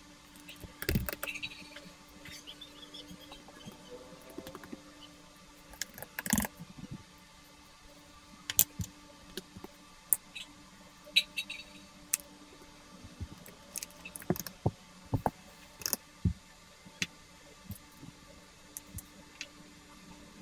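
Plastic keycaps clicking and clacking as they are pressed back onto the mechanical switches of a Machenike K600 keyboard, one at a time at irregular intervals, with a faint steady hum underneath.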